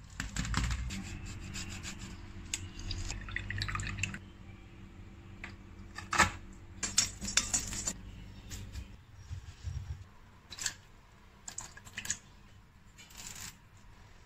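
Scattered kitchen clicks and knocks, with a low rumble over the first four seconds. A dense run of sharp knocks from about six to eight seconds in comes from a pestle working whole spices in a stone mortar.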